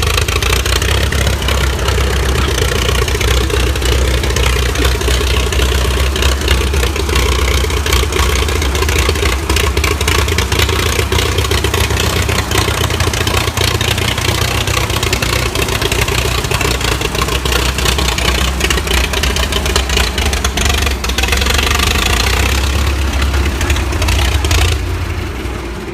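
International bulldozer's engine running loudly with a steady clatter, then dying away near the end.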